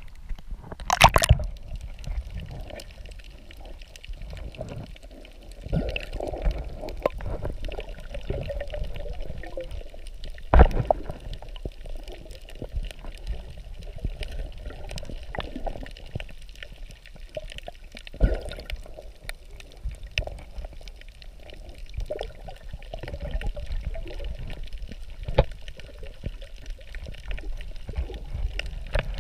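Seawater heard from underwater: a muffled, steady wash of moving water with gurgling, broken by scattered sharp clicks and knocks, the loudest about a second in and again about ten seconds in.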